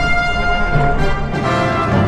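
Orchestral background music with brass instruments, held notes changing every second or so.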